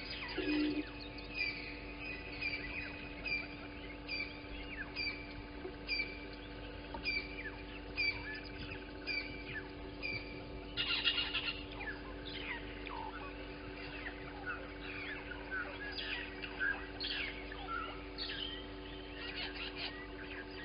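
Wild birds calling: one bird repeats a short falling call about once a second, with other birds chirping among it. A brief burst of noise comes about halfway, over a steady low hum.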